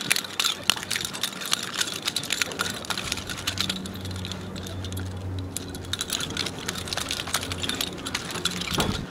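Rapid, irregular metallic clicking and rattling from two khukuri knives being twirled. A low steady hum comes in about three and a half seconds in.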